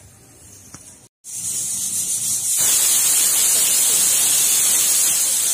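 Steam hissing out of a stovetop pressure cooker's whistle weight as it vents at pressure, starting about a second in and growing louder a moment later, then holding steady.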